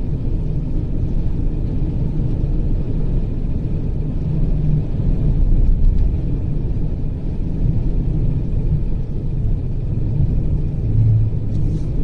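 Steady low rumble of a vehicle driving along a snow-covered road in a blizzard, with a faint engine hum underneath.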